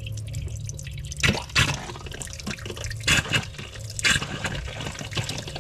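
Freshwater spigot opened over a drain, spitting water and air in irregular spurts as RV antifreeze is pushed through the line, over a low steady hum.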